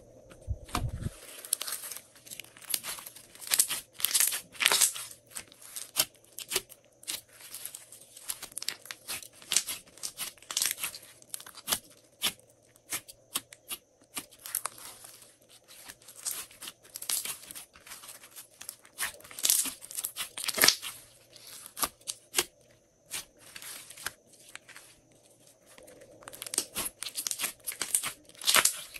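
Glossy slime being kneaded, pressed and pulled apart by hand, giving a dense run of irregular sticky pops and crackles.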